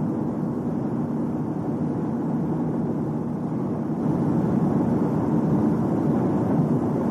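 Steady low drone of a moving car, with no clear tone or rhythm, growing a little louder about four seconds in.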